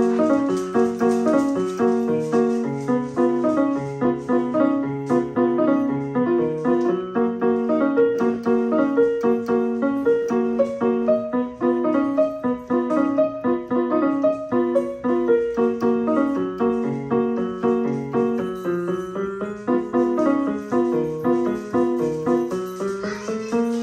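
Background music: a piano playing a quick, repeating pattern of short notes.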